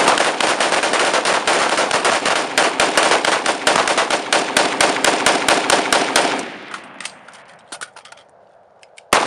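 Several AR-15 rifles firing rapid shots at once, overlapping into a dense volley. After about six and a half seconds it thins to scattered single shots, with one loud shot just before the end.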